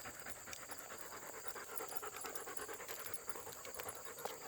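German Shepherd panting, quick and steady.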